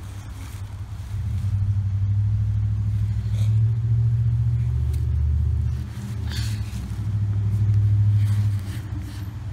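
Low engine rumble of a nearby motor vehicle. It swells about a second in, dips briefly around six seconds, then swells again before fading near the end.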